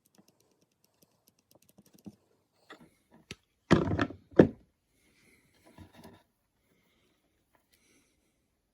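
Light clicks of things being handled, then two heavy thuds about half a second apart about four seconds in, with a few softer knocks shortly after.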